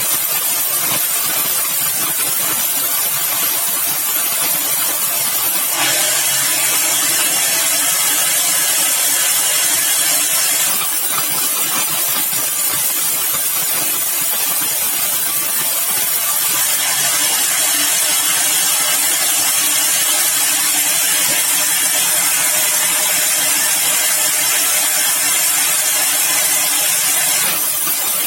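Sawmill machinery running steadily with a strong hiss. About six seconds in it grows louder, with a low hum and brighter hiss, and it drops back near the end.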